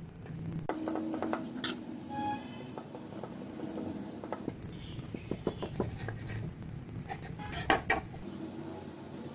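Kitchen knife and bread slices handled on a steel plate and counter: scattered light clicks and taps as a slice is cut diagonally, with two sharp knocks near the end, the loudest. A brief squeaky tone sounds about two seconds in.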